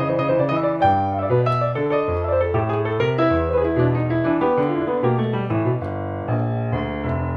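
Grand piano played solo: low bass notes that change about once a second under chords and melody in the right hand.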